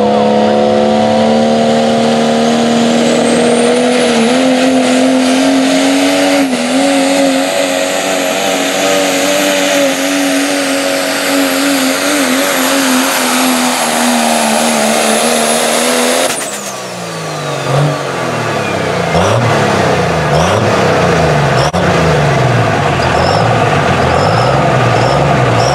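Diesel pickup truck engine at full throttle under heavy load, pulling a sled, with a high turbo whistle that rises over the first few seconds and then holds. About sixteen seconds in, the throttle is released: the engine drops sharply and the whistle falls away as the turbo spools down, leaving the engine running lower with a few varying revs.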